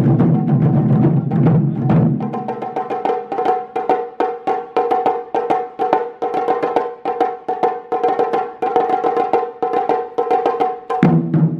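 Japanese taiko drums played as an ensemble. Deep, heavy drumming for the first two seconds gives way to a fast run of sharper, higher-pitched strokes, several a second. The deep drums come back in near the end.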